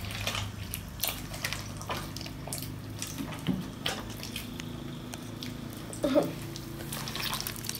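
Pink glue slime being squished and kneaded by hand in a glass bowl, giving small irregular wet squelches and clicks as the activator works in. A short vocal sound comes about six seconds in.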